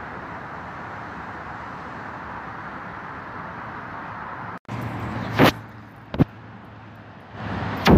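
Steady outdoor traffic noise from passing and idling vehicles. After a sudden break, a low hum carries a few sharp clunks and knocks, the loudest about three seconds apart.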